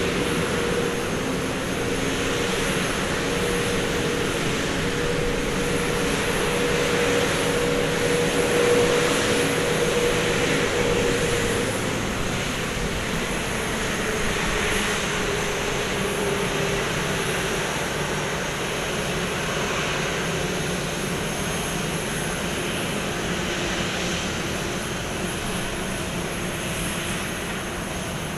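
Jet airliner turbofan engines running with a steady rushing noise and a whine. About halfway through the whine slides lower and the sound eases off slightly.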